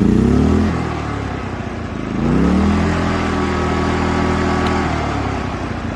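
WEN 56235i inverter generator's small four-stroke engine running just after a cold start on choke, after a month unused. Its speed rises at first, sags within the first second, then surges up again about two seconds in and holds steady, easing down slightly near the end.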